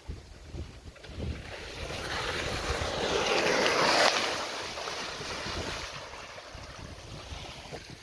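Water rushing and spraying on a steep water-park speed slide as a rider comes down. It swells over a couple of seconds, peaks about four seconds in as the spray hits at the runout, then dies away, with wind buffeting the microphone throughout.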